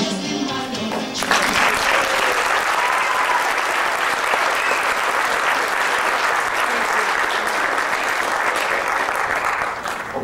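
Music playing for the dance stops about a second in, followed by an audience applauding loudly, which dies down near the end.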